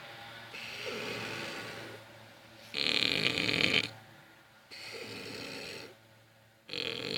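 A person snoring heavily and rhythmically: a loud, rasping snore about every four seconds, with a softer snore between each pair of loud ones.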